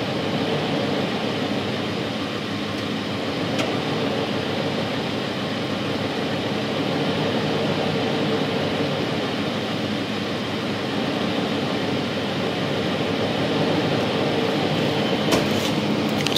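Jeep engine running steadily with no revving, along with a few sharp clicks near the end.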